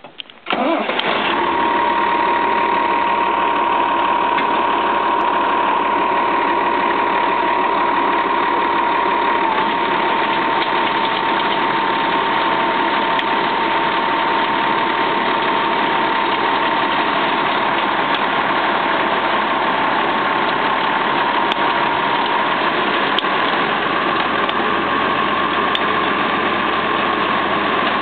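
Tractor-driven Grimme CS-150 RotaPower stone separator working soil through its PTO shaft: a steady engine and machinery noise with a constant whine running through it.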